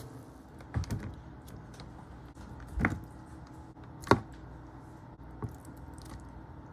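Metal kitchen tongs clicking and tapping against a container as food is picked up and set down: a handful of light, scattered taps, the loudest about four seconds in.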